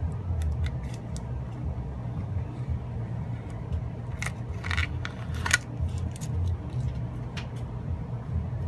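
Small tool scraping and clicking against a Samsung Galaxy S4's frame as leftover adhesive is cleaned off, with a cluster of sharp clicks midway, over a steady low hum.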